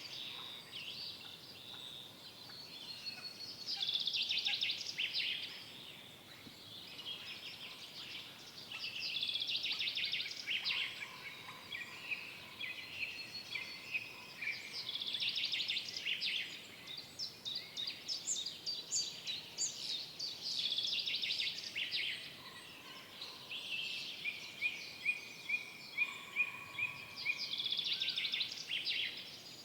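Forest songbirds singing: a bird song phrase of rapid high notes comes every few seconds, with a run of evenly repeated notes near the end, over a faint steady background hiss.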